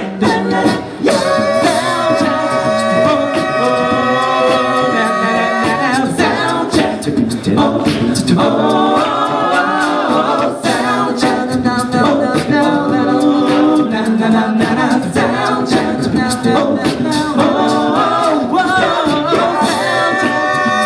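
A cappella group singing sustained close-harmony chords over a steady vocal-percussion beat.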